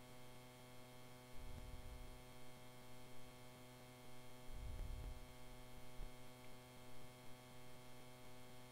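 Faint steady electrical mains hum from the recording chain, a stack of evenly spaced tones. Two soft low bumps come in, one about a second and a half in and one about halfway through.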